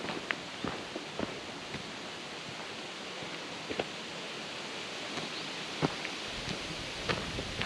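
A steady outdoor hiss of wind, with a few scattered light clicks and crunches of footsteps on the trail.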